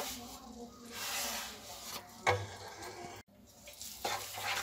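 Roasted semolina being scraped off a plastic plate with a wooden spatula into hot sugar syrup in a pan, with rasping scraping sounds and a sharp knock about two seconds in. Near the end, the wooden spatula stirs the wet semolina around the pan in quick scraping strokes.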